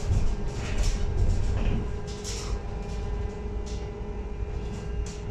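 Inside a moving LiAZ-6274 electric bus: low road rumble with a steady hum from the bus's electric drive, and a few short noises over it.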